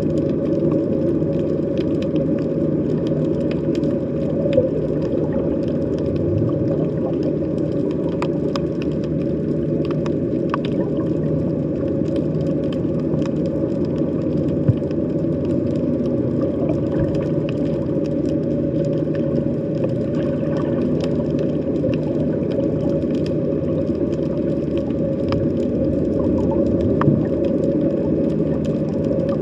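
Underwater sea ambience: a steady low hum with a few held tones, and scattered faint clicks over it.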